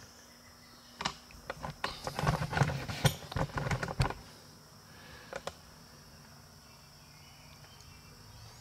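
Scattered sharp clicks and knocks of handling, thickest from about two to four seconds in, over a faint steady high-pitched whine.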